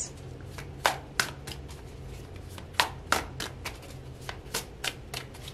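A deck of tarot cards shuffled by hand: irregular quick card snaps and slaps, the louder ones about a second in and about three seconds in.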